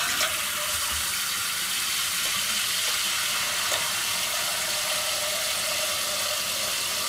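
Kitchen tap running steadily, its stream splashing into a saucepan of water in a stainless steel sink.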